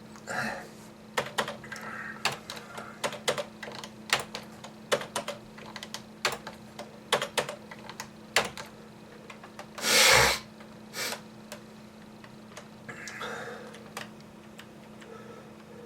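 Computer keyboard typing: irregular clicking keystrokes through most of the first nine seconds. About ten seconds in comes one loud cough-like burst from the typist, followed by a weaker one a second later.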